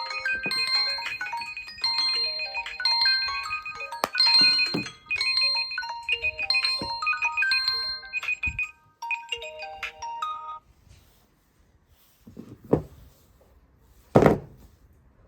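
Several smartphone ringtones playing at once, their melodies overlapping with a repeating high beep, until they cut off about ten seconds in. After that come two short thumps.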